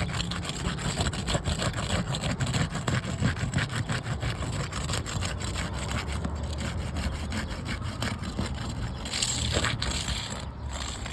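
Continuous rapid rasping and scraping on a hard material, made of many small strokes, over a low rumble, with a brighter hiss about nine seconds in.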